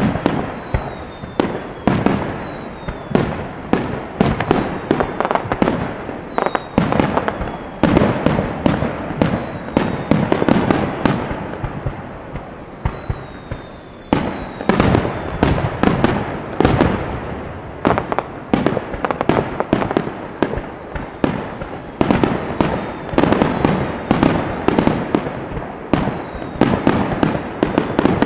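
Aerial fireworks display: a rapid, overlapping run of shell bursts and crackles, with loud booms about once a second. In the first half, short whistles fall in pitch. The barrage thins for a moment about halfway through, then builds again.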